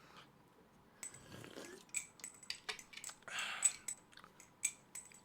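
Light metallic clicks and clinks from an LDY Corvus aluminum balisong being handled, starting about a second in and coming about a dozen times at an uneven pace, with a short rustle of handling in the middle.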